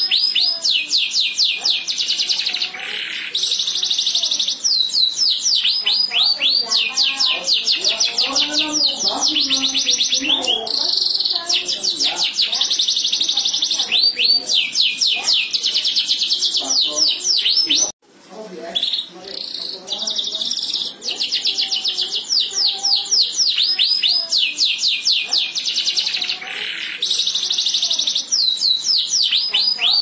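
Domestic canary singing a long, loud song of rapid repeated notes, each sweeping downward in pitch, run together into fast rolls and trills. The song breaks off abruptly about eighteen seconds in and picks up again a moment later.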